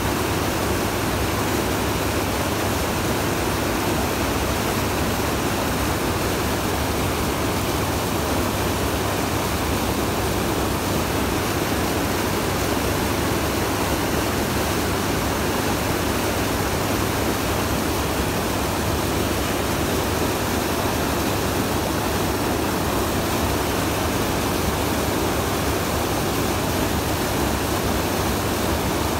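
Steady rushing of churned water in a moving boat's wake, with the boat's motor running underway.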